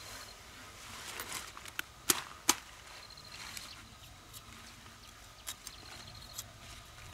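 Kitchen knife cutting the leaf stalks off a kohlrabi bulb: a few crisp snicks, the two loudest close together about two seconds in, half a second apart.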